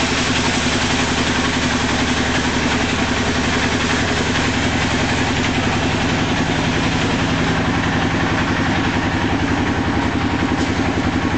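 An engine running steadily with a fast, even throb, at an unchanging speed.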